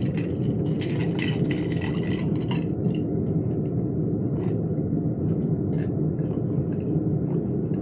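A steady low rumble with scattered soft clicks and smacks, typical of close-miked chewing and mouth sounds while eating; the clicks come mostly in the first few seconds, then a few single ones later.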